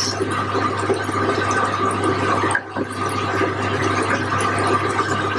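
Chicken curry bubbling in the pot on a gas hob as it is stirred, a steady watery hiss with a constant low hum underneath that dips briefly about halfway through.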